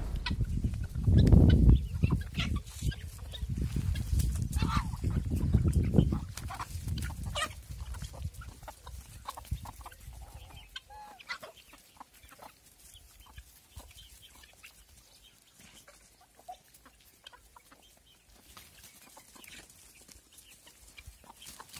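Country chickens clucking in short, scattered calls. A low rumble is loudest over the first six seconds or so, and after that the clucks go on more quietly.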